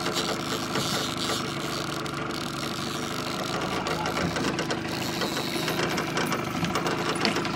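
Boat's outboard motor idling steadily, a constant, even hum.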